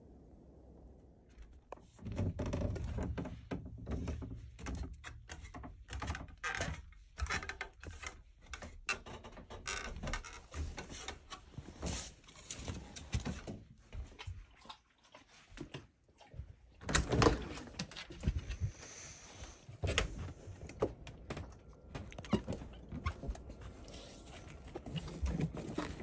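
Someone moving about a small room: footsteps on a wooden floor with irregular knocks, thuds and clicks, including a door being opened. The knocks are loudest about seventeen seconds in.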